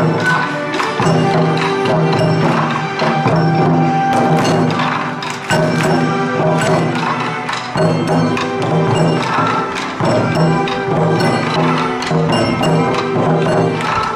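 Bon odori dance music: a pop song arranged for the dance, with a steady percussion beat under a pitched melody.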